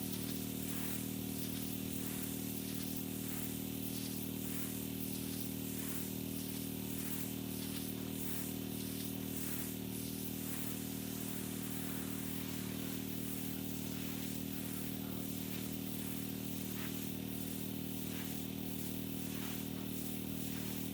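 Petrol-engine pressure washer running steadily, with the hiss of the high-pressure spray swelling and fading as the wand sweeps.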